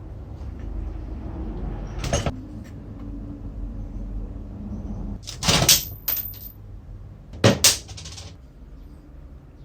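Metal parts or tools being handled, giving a few short clanks and knocks over a low steady rumble; the loudest come in a quick pair about three quarters of the way through.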